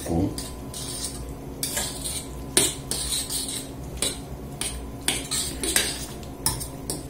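A spoon stirring buckwheat porridge with soft-cooked pumpkin in a stainless steel saucepan, scraping and clinking against the pot's side and bottom in irregular strokes.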